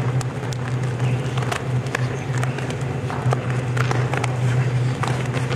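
Irregular light taps of hands and trainers on a wooden sports-hall floor as several people work through plank exercises, over a steady low hum.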